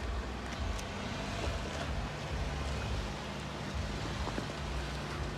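Jeep Wrangler JK Rubicon's V6 engine running low and steady as the Jeep moves along a rocky off-road trail, with scattered light clicks and crunches from the tyres on rock and gravel.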